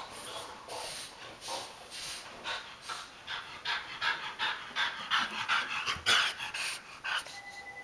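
French bulldog panting hard, about three quick, noisy breaths a second, stopping near the end.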